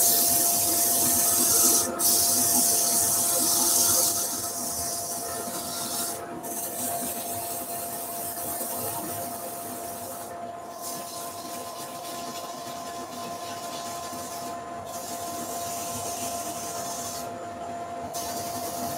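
150-grit abrasive held against a sycamore platter spinning on a wood lathe: a steady rubbing hiss, loudest in the first few seconds, breaking off briefly about every four seconds. A steady tone from the running lathe carries on underneath.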